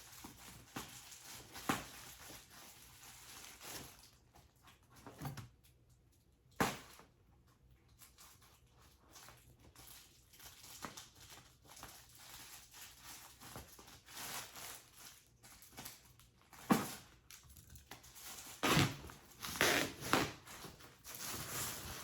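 Plastic shipping bag being cut and torn open and handled: irregular crinkling and tearing of plastic, with a few louder rips and crackles toward the end.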